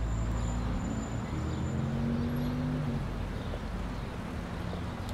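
Outdoor street ambience: a low, steady rumble of traffic. A couple of low held tones fade out about halfway through.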